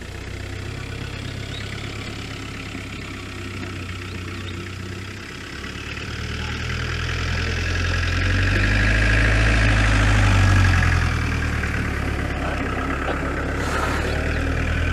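A vehicle engine idling steadily, getting louder for a few seconds in the middle.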